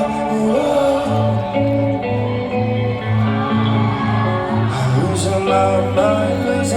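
Rock band playing live with singing. A bass line pulses in even notes about twice a second from about a second in.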